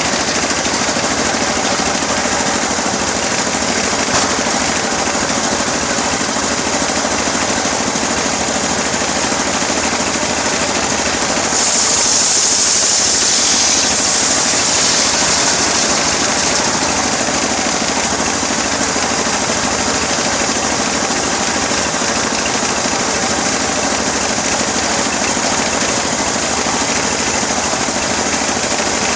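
Engine-driven homemade sawmill running steadily while sawing teak, with a rapid mechanical rattle. About twelve seconds in a higher hiss grows louder for a few seconds as the cut goes on.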